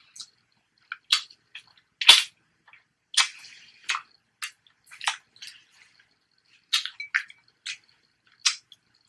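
Close-miked eating sounds from snow crab legs in sauce: short, wet clicks and smacks of chewing come at irregular intervals, sometimes several a second.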